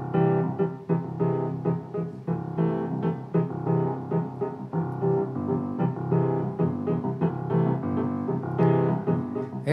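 Grand piano played solo, several notes sounding together in a steady flow of chords and melody.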